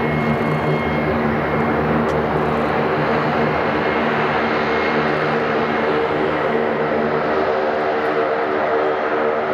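Saab 2000 regional airliner's two Allison AE 2100A turboprop engines with six-bladed propellers running at low taxi power: a steady droning hum of several held tones over a rushing hiss.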